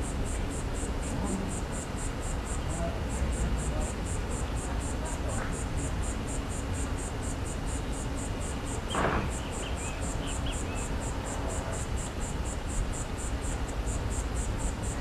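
An insect chirping in a fast, even pulse, about five high-pitched chirps a second, pausing briefly now and then, over a steady low rumble of wind on the microphone. A short, louder brush of noise comes about nine seconds in.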